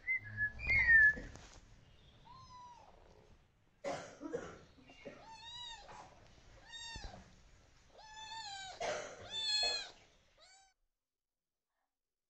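A one-month-old kitten mewing over and over, short thin calls that rise and fall, coming in little clusters. About a second in there is a louder thump of handling noise.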